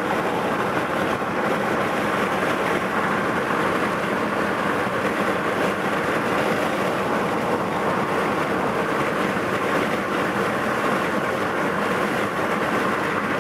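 A car being driven at speed, with a steady hiss of road and wind noise that neither rises nor falls.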